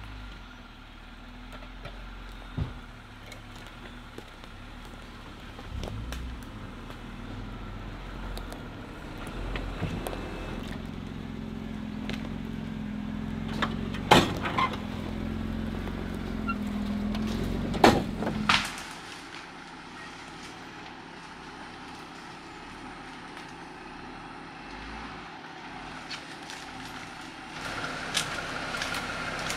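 A Jeep crawling slowly in low gear, its engine running low and steady and growing louder towards the middle, with a few sharp cracks, the loudest about halfway through and again a few seconds later. After that the engine sound drops off suddenly and stays quieter.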